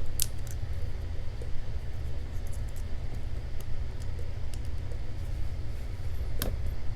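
A steady low hum, with a few small sharp metallic clicks from handling the parts of a padlock being taken apart, one just after the start and one near the end.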